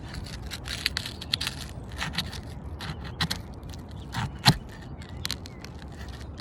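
Metal tool scraping and prying under asphalt roof shingles to free the roofing nails: irregular scrapes and sharp clicks, with one louder click about four and a half seconds in.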